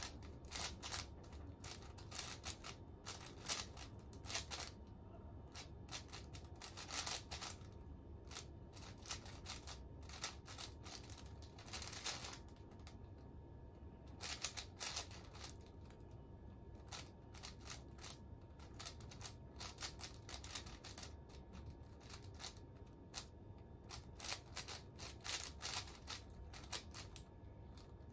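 Plastic layers of a 5x5 speed cube being turned quickly by hand during a solve: bursts of rapid clicking and clacking, broken by short pauses.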